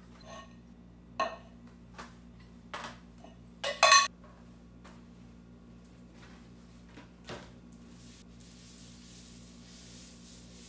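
Kitchenware being handled on a countertop: a handful of separate clinks and knocks, the loudest a quick double knock about four seconds in, over a faint steady low hum.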